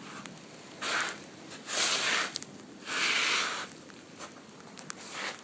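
Small hailstones pattering steadily, with scattered sharp ticks. Four loud, short, crunching rushes of noise break in: about 1 s in, 2 s in, 3 s in, and a weaker one near the end.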